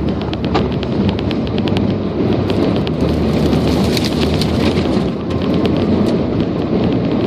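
Strong high wind buffeting the microphone: a steady, loud rumble with many small crackles and ticks throughout.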